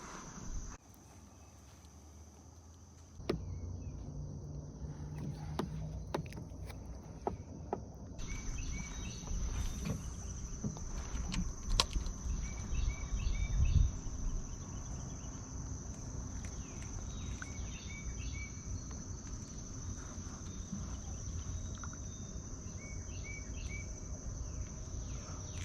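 Insects buzzing in a steady high drone, with short chirp groups every few seconds, over scattered clicks, knocks and low handling noise.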